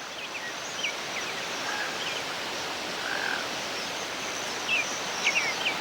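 Outdoor nature ambience: a steady rushing hiss with short, high chirps from small animals scattered through it, several in quick succession near the end.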